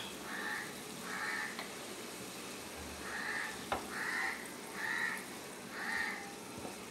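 A crow cawing about six times, short harsh calls roughly a second apart with a pause in the middle. There is one sharp click about halfway through.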